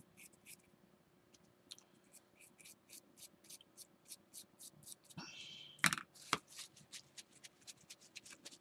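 Small paintbrush scratching and dabbing against a textured terrain column in a quick run of faint strokes, about three or four a second. A little past the middle comes a brief rustle, then two louder knocks.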